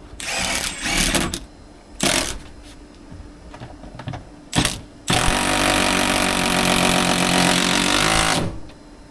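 Power tool with a socket driving the swivel seat base's bolts down: a few short bursts, then a steady run of about three seconds that stops suddenly.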